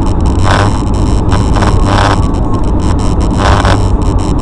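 Road and engine noise heard inside a car driving on a slushy winter highway: a steady low drone, with a few brief hissing swishes.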